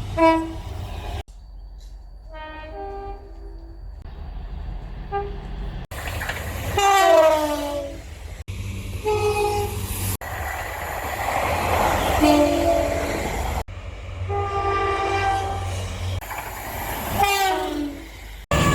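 A string of short clips of trains sounding their horns, including two-tone horns, with abrupt cuts every few seconds. In some clips the horn's pitch slides down as the train passes, and a low engine and rail rumble runs beneath.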